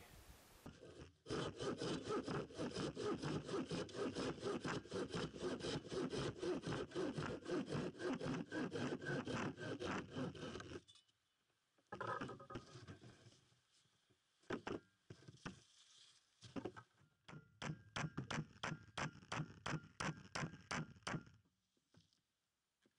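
Handsaw cutting a wooden board: quick, even back-and-forth strokes, about four a second, for roughly ten seconds. After a pause come a few scattered strokes, then a second shorter run of sawing near the end.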